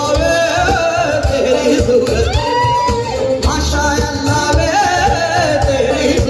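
Live amplified concert music: a male singer's voice gliding through a melody over a band with a heavy drum beat, heard from within the audience in a large tented venue.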